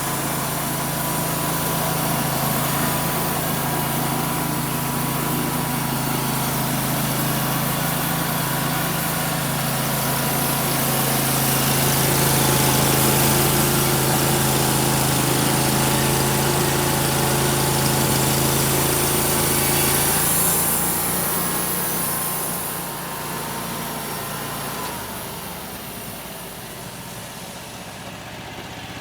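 Engine of a homemade sawmill running steadily. About twenty seconds in it changes and drops in level, then winds down near the end with a falling whine.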